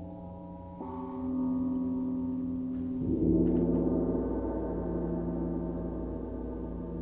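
Slow, sustained ensemble music dominated by ringing struck metal percussion. A new stroke enters about a second in and a louder, deeper one about three seconds in, each left to ring and slowly fade.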